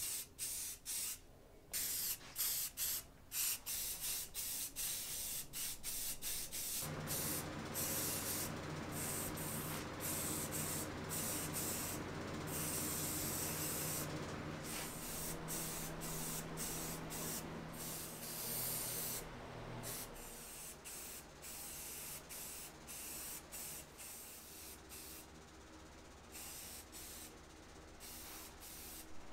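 Aerosol spray-paint can spraying in hisses: many short bursts at first, then longer, almost unbroken spraying, with a low steady hum underneath for a while.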